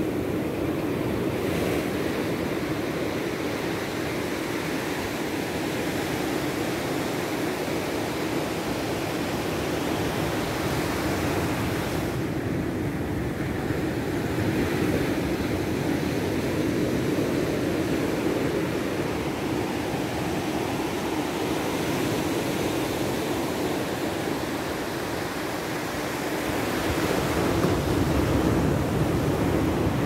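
Small waves breaking and washing up a sandy beach in a steady surf wash, swelling a little louder near the end.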